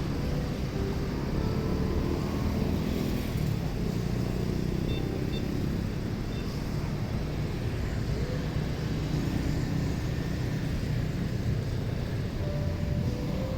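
A steady, low engine rumble with no distinct events, the kind heard from airliners running at an airport.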